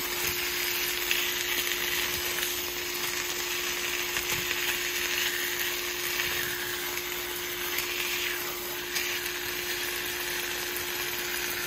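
Pork chops sizzling steadily as they fry in a skillet, with a few light taps and scrapes of a metal fork as they are turned.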